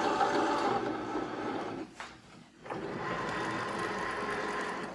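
Cricut Maker cutting machine's motors whirring as the rollers draw the fabric mat in and the tool carriage moves. The whine stops briefly about two seconds in, with a click, then runs steadily again.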